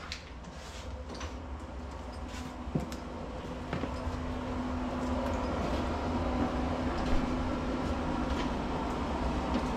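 A door opens with a few sharp clicks, then a steady machine hum and rushing rumble grows louder on the way outside.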